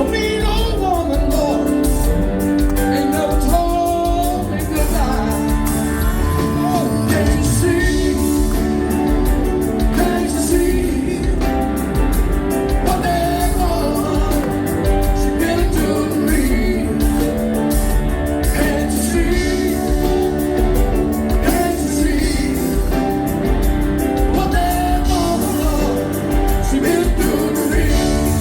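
Live southern rock band playing an instrumental passage, loud and steady, with a lead line bending and sliding between notes over the drums and bass.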